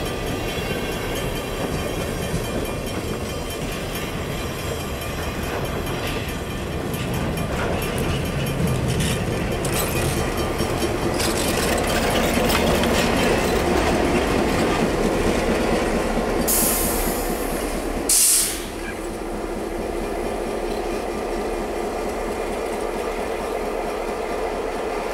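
A slow freight train of empty gondola cars rolling by, with knocks from the wheels over the rail joints. About halfway through a trailing diesel locomotive passes close and the rumble rises to its loudest. After a brief high-pitched burst near the two-thirds mark the sound drops back to a steadier rumble as the train moves away.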